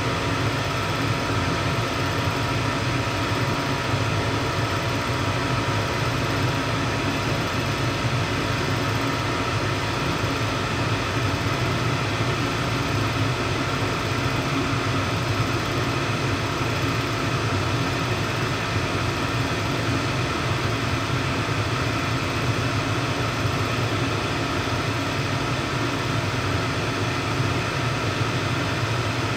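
Janitrol GMP gas furnace running steadily on a call for heat: the burners firing and the draft inducer motor running. There is no hum or start-up of the circulating blower fan, which has failed to come on.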